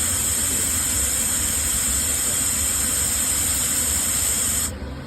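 Sandblasting machine's compressed-air blast hissing steadily over a low machine hum. The hiss cuts off suddenly near the end, leaving the hum.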